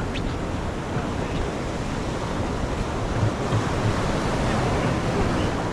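Steady wash of waves with wind rumbling on the microphone.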